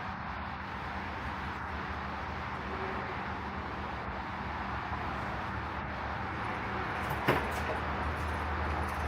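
Steady mechanical hum with a hiss over it, and a single sharp knock about seven seconds in.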